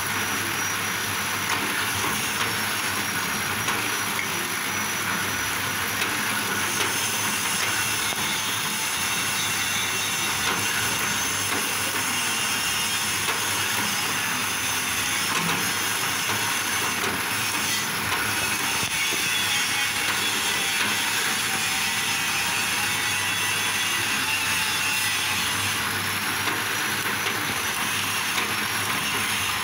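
Bamboo-shaving machine for satay skewers running steadily, a continuous mechanical noise with a faint high whine that wavers near the start and near the end.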